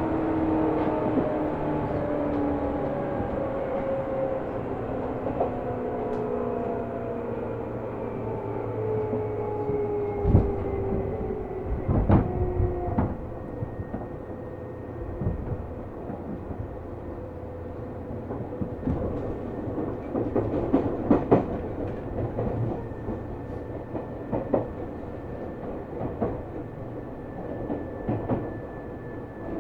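Seibu New 2000 series electric train heard from inside the car as it slows. Its motor and gear whine falls in pitch over the first dozen seconds, then the wheels clack over rail joints and points at low speed.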